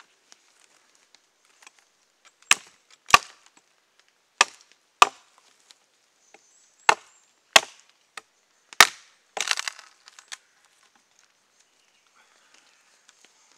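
Hatchet chopping into a log of ash to split it: seven sharp blows, three pairs about half a second apart and then a single one, starting about two and a half seconds in. Just before ten seconds comes a short rattling crackle.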